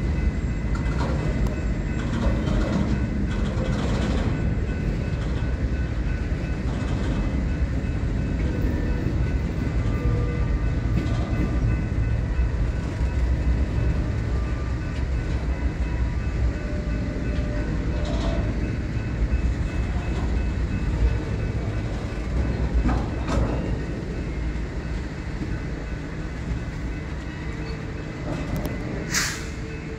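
Freight train cars (centerbeam flatcars, covered hoppers and boxcars) rolling past at steady speed: a continuous low rumble of steel wheels on rail with occasional knocks and faint high squeals. A brief sharp screech comes near the end.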